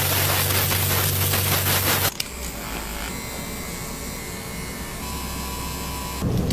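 A swab-like tool scraping rapidly across the scalp along a hair part, about five or six strokes a second over a steady low hum. About two seconds in it cuts off suddenly to a quieter steady hum.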